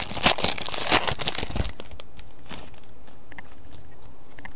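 Foil wrapper of a pack of football trading cards torn open and crinkled, loud for the first couple of seconds, then only a few faint ticks as the cards are handled.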